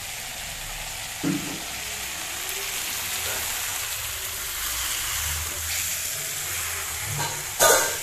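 Mixed vegetables sizzling steadily in a black iron kadai as they are stirred with a steel ladle. A knock comes about a second in, and a louder clank near the end.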